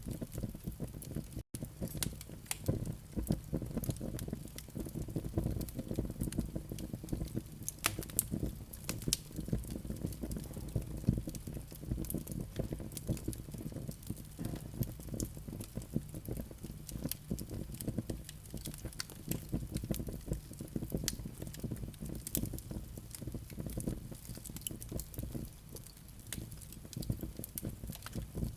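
Fireplace with hot, flaming live coals crackling: irregular small sharp pops over a steady low rumble of the fire.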